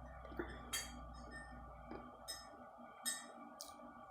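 A few light clinks of forks against a glass bowl or dishes, each ringing briefly.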